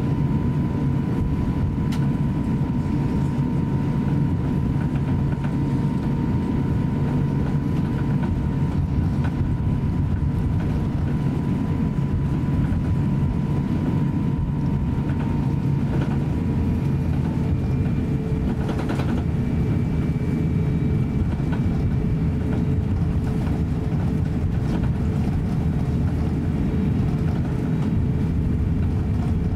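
Cabin noise of an Airbus A350-900 taxiing: a steady low rumble from its Rolls-Royce Trent XWB engines at taxi power and the rolling airframe. A faint steady whine runs alongside and fades out about halfway through.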